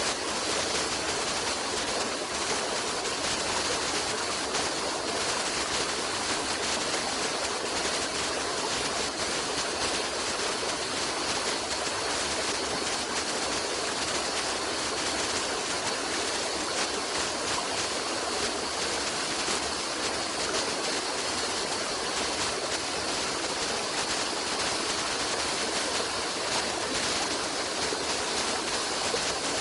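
Running water of a stream, a steady even rush with no breaks or separate splashes.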